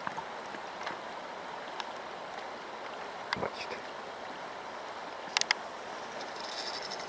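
Steady rush of river water around a drifting inflatable raft, with a few sharp knocks, the loudest a quick double knock about five seconds in.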